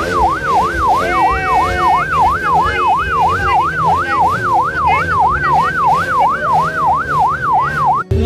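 A siren wailing in fast, even up-and-down sweeps, about three a second, with a lower wavering tone beneath it; it cuts off abruptly near the end.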